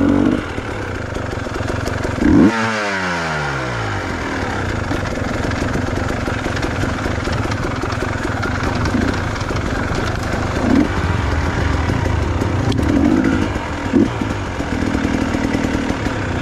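Trail motorcycle engines running steadily, with one dirt bike passing close about two seconds in, its engine note loud and then falling in pitch as it goes by.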